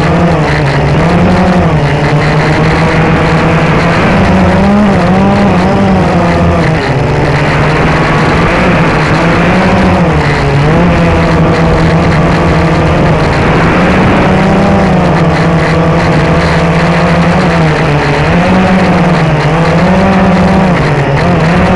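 Blade 350 QX quadcopter's four brushless motors and propellers running loudly, heard from on board, the pitch rising and falling again and again as the throttle changes in flight.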